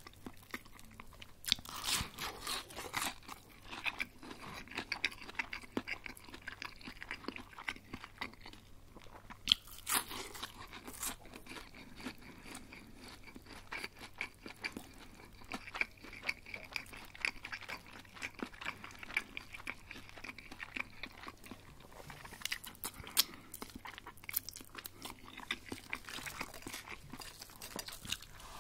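Close-miked eating: biting into and chewing crispy breaded chicken schnitzel, a run of wet clicks and crunches. Louder bursts of crunching come about two seconds in, about ten seconds in, and again through the last third.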